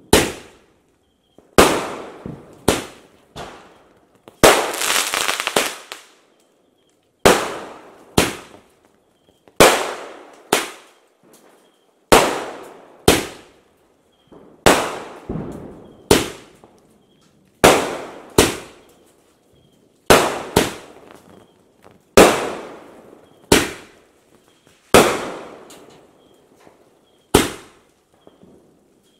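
A 30-shot multi-colour aerial firework cake (Supreme Fireworks Rock Dance) firing shot after shot: sharp bangs about every one to two seconds, each fading out in a short echoing tail. About four seconds in comes one longer, denser crackling burst lasting over a second.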